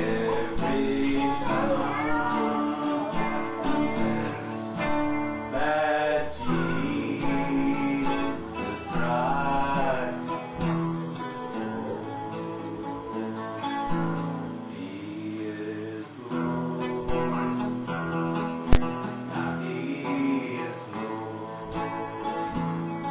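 Acoustic guitar music, strummed and picked, with a man's voice singing along at times. There is a single sharp click about three-quarters of the way through.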